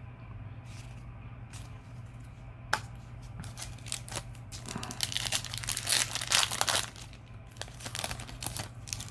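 Trading-card packaging being torn open: crinkly wrapper tearing and crumpling in a few bursts, loudest past the middle, with a sharp click a little before. A low steady hum sits underneath.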